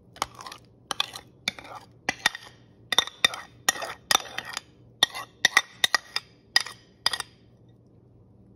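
A metal fork scraping and tapping against the inside of a small bowl, a quick irregular series of clinks and scrapes as a thick creamy dressing is scraped out. The clinking stops about seven seconds in.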